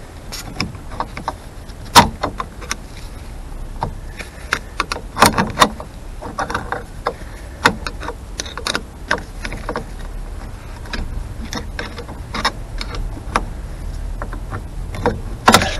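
Irregular metallic clicks and knocks of a screwdriver, steel brake shoes and return springs against a Morris Minor 1000 rear drum-brake backplate as the shoes are levered into place. The loudest knock comes about two seconds in, with a cluster of clatter around five seconds and again near the end.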